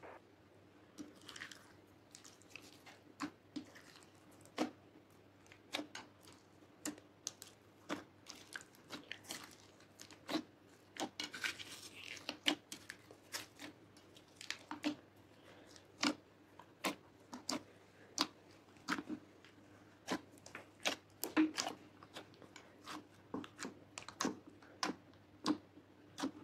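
Slime mixed with foam beads and glitter being folded and kneaded by hand in a glass dish: quiet, irregular wet clicks and pops, about one or two a second.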